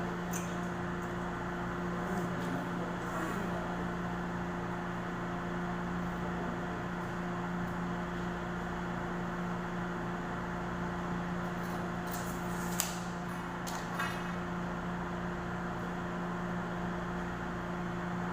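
Steady mechanical hum with two constant low tones, with two sharp clicks about 13 and 14 seconds in.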